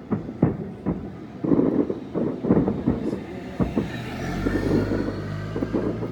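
A run of sharp bangs and knocks, then from about four seconds in a steady low engine hum.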